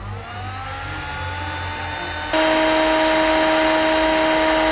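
Electric heat gun running: its fan spins up with a rising whine, then about two seconds in it jumps suddenly to a louder, steady blowing hum. It is heating a tapered roller bearing so that it expands before being fitted.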